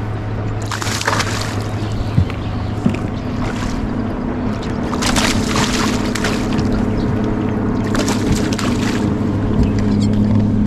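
A hooked bass splashing and thrashing at the water's surface in four short bursts, the third about halfway through, over a steady low hum from the boat.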